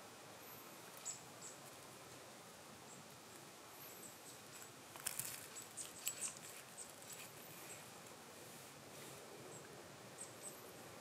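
Faint outdoor ambience: a soft steady hiss with a few thin, high chirps, and a brief run of small clicks and crackles about five to six seconds in.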